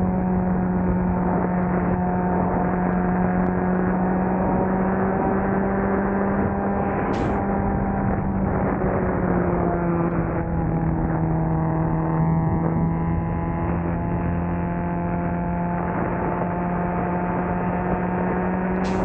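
Nissan SR20VE 2.0-litre inline-four engine running at a steady speed, its pitch holding nearly constant with a slight dip partway through.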